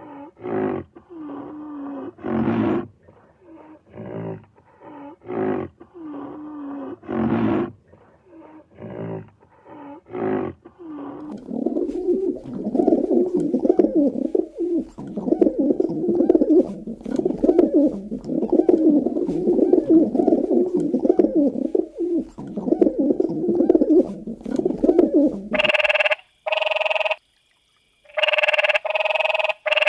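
Animal calls in three runs: first a string of separate low calls under a second apart, then a dense stretch of overlapping low calls, and near the end a louder, brighter call repeated with short gaps.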